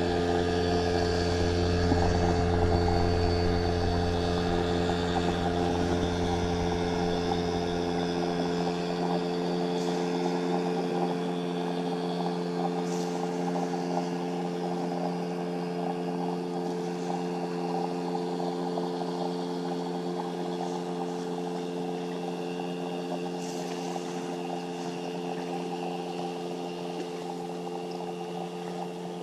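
Motorboat engine running steadily at one unchanging pitch, slowly growing fainter as it moves away. Its deep low rumble fades out about a third of the way in.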